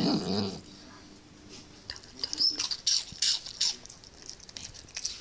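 Small shaggy dog finishing a low growly 'talking' vocalisation in the first half-second, then a run of short wet clicks from its mouth as it licks and smacks its lips.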